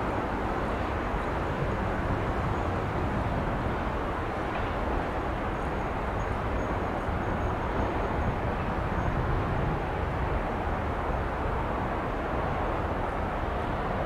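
Steady rumble of vehicle noise, holding one level throughout.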